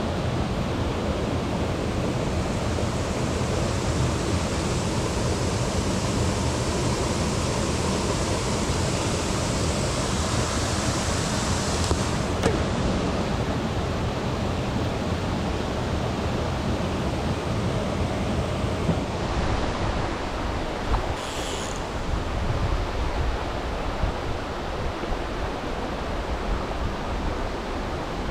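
Steady rushing of a mountain stream's water. Its hiss grows duller about two-thirds of the way through.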